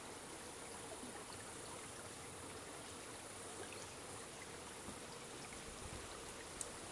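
A shallow forest stream flowing: a soft, steady rush of water, with a single click near the end.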